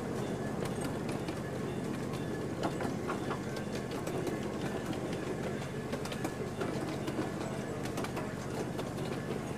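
Ride-on miniature train rolling along its track: a steady rumble of the riding cars' wheels on the rails, with scattered clicks and rattles.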